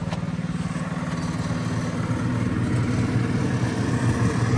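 Small off-road vehicle's engine running and getting steadily louder, its pitch dropping about two seconds in.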